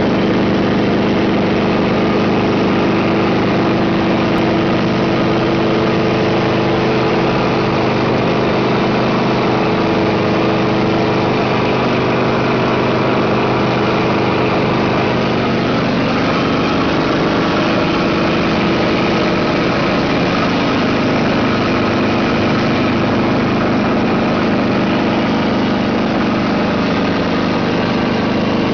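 A small helicopter's engine and rotor running at a steady pitch, a constant drone heard close up from aboard the helicopter.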